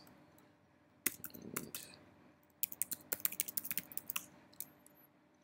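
Typing on a computer keyboard: a short run of keystrokes about a second in, then a longer, quicker run from about two and a half seconds to about four seconds in.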